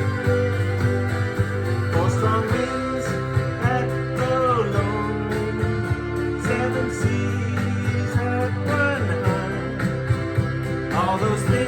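Country-style acoustic guitar music with a low bass and a melody line that bends between notes, played without words.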